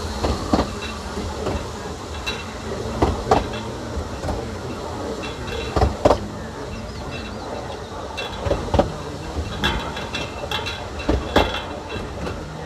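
Narrow-gauge railway coach running along the track: a steady rumble with a clanking double clack over the rail joints every two and a half to three seconds.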